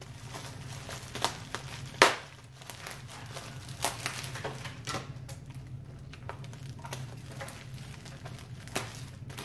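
Bubble wrap and plastic packaging crinkling and crackling as it is handled and unwrapped, with scattered sharp crackles, the loudest about two seconds in.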